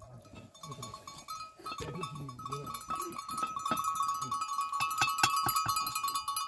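Bells on a grazing flock of sheep and goats clinking steadily, getting louder after about three seconds, with some bleating.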